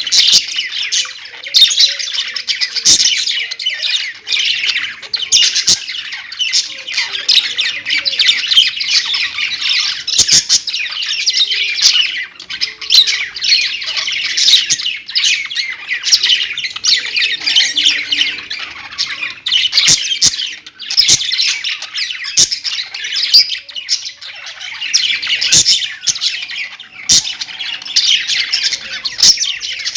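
A group of pet budgerigars chirping, warbling and chattering together without pause, with scattered sharp clicks and squawks among the chatter.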